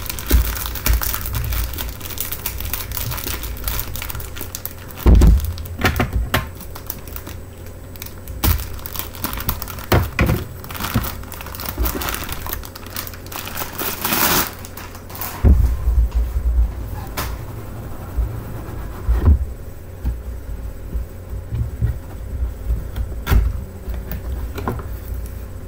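Clear plastic packaging crinkling and a cardboard box rustling as a reed diffuser is unpacked, with scattered sharp clicks and a few louder knocks from handling the box.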